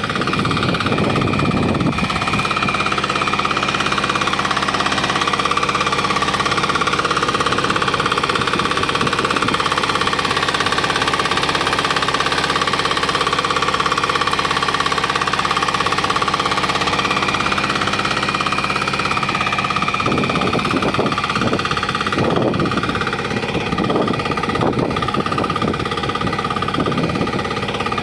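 VST 95 DI Ignito power tiller's single-cylinder direct-injection diesel engine running steadily under load while tilling, with a fast, even clatter and a steady high whine. A few irregular knocks come in about two-thirds of the way through.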